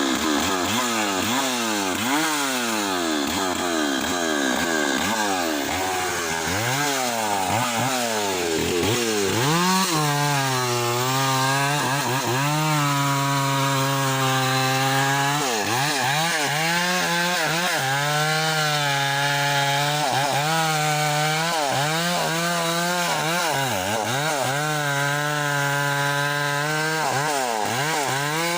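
Stihl chainsaw's two-stroke engine. For roughly the first nine seconds it is revved up and down about once a second, then it is held near full throttle cutting into teak, its pitch dipping briefly and recovering again and again as the bar loads up in the wood.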